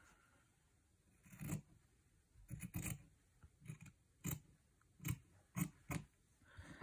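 Pink-handled fabric scissors snipping through layered cotton fabric scraps: a series of about eight short, separate cuts, starting about a second and a half in.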